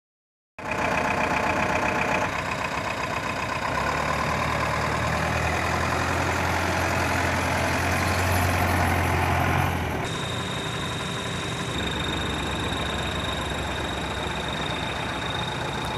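Tata LPT 1109 cargo truck's diesel engine idling steadily. About ten seconds in the deep hum drops away, and a thin steady high tone is heard over the idle.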